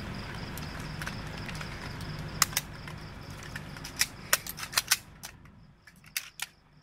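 Sharp metallic clicks and clacks of rifles being handled: a few single clicks, then a quick run of several about four to five seconds in and a few more near the end. A steady low hum underneath fades out about five seconds in.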